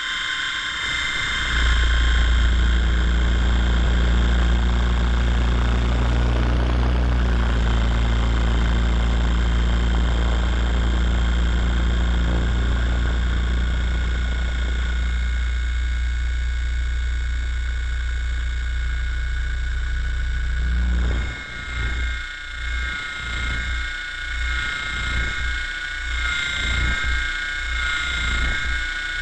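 Helicopter noise picked up by a camera spinning with the rotor: a heavy steady wind rumble with a high whine over it. About twenty seconds in, the rumble turns into regular whooshing pulses, roughly one and a half a second.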